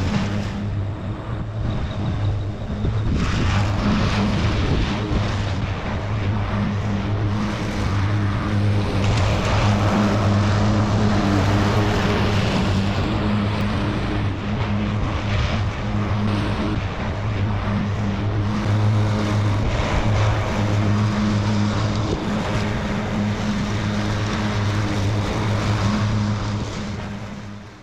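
Craftsman ride-on lawn mower running steadily while mowing: a constant engine hum with the noise of the cutting deck over it. It fades out near the end.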